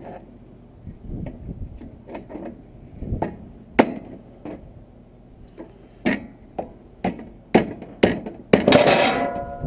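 Hand tools knocking and prying at a brass water-heater valve: irregular sharp metal knocks, then about a second of ringing metal scraping near the end.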